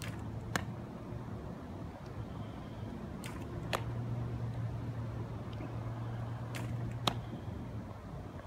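Baseball smacking into leather gloves in a game of catch: sharp pops come in pairs about half a second apart, a pair roughly every three seconds, over a steady low hum.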